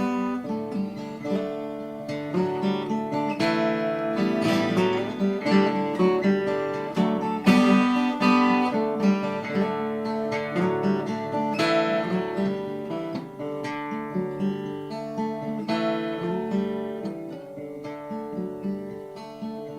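Acoustic guitar introduction: picked and strummed chords, with no voice yet.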